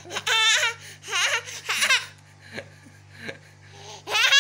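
A small boy laughing in several high-pitched bursts through the first two seconds, then again briefly near the end.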